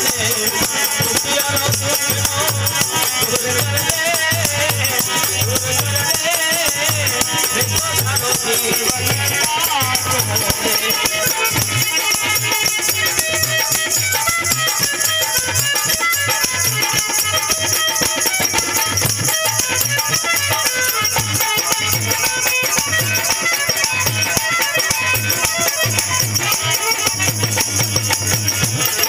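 Live Indian devotional folk music: a harmonium plays the melody over a regular dholak beat, with steady high jingling percussion throughout. A voice may sing during the first several seconds.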